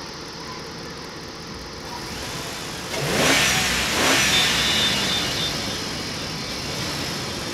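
A vehicle engine revving up and going past close by, loudest about three to four seconds in and then fading, with a short high whine just after the loudest point.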